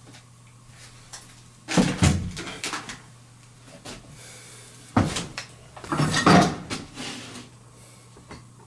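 Two bouts of knocks and clatter from handling: one starts sharply a couple of seconds in and dies away over about a second, and a second, busier bout of several knocks follows about three seconds later.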